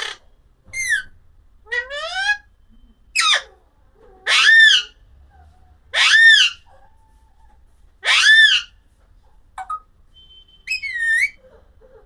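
A parrot giving a series of short, loud whistling calls, about one every second or so, several sweeping upward in pitch.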